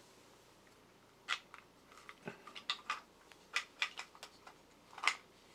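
3D-printed plastic robot parts clicking and tapping together as they are handled and pressed into place: about a dozen irregular sharp clicks, starting about a second in, the loudest near the end.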